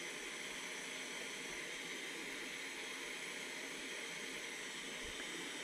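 Steady hiss of a LEXIVON LX-770 butane soldering iron burning at full gas on its highest setting.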